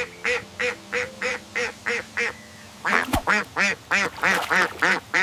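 Duck quacking in two quick runs of short quacks, about three or four a second, with a brief pause in the middle; the second run is louder.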